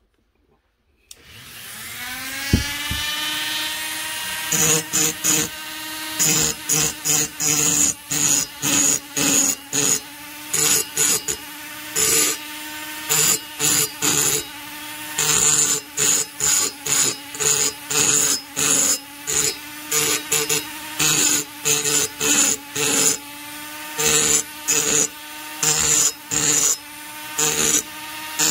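A handheld rotary tool spins up to speed about a second in, its whine rising, then holding steady. From about four seconds in, its small burr grinds the lower transfer ports of an Echo CS-670 chainsaw cylinder in many short passes, about two a second, and the grinding keeps cutting in and out over the steady whine.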